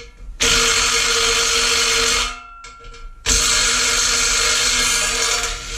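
Cordless impact driver hammering at a corroded, frozen back cap bolt on a Leslie RS3L train horn, in two runs of about two seconds each with a short pause between; the bolt breaks loose.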